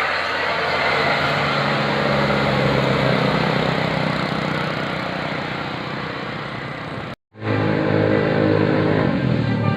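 Bus engine running with road noise, slowly fading away; a sudden brief silence about seven seconds in, then an engine running again with a steady hum.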